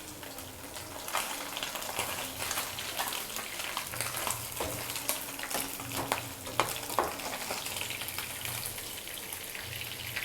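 Small parse fish sizzling as they fry in hot mustard oil in a kadai, with the spatula scraping and knocking against the pan now and then.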